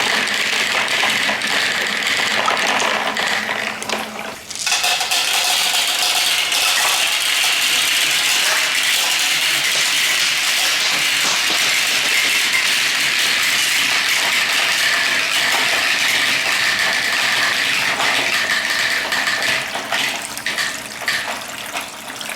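Water rushing steadily down plastic spiral somen-noodle slides, pumped round by an electric pump. It drops out briefly about four seconds in, and near the end it thins out under a few sharp clicks.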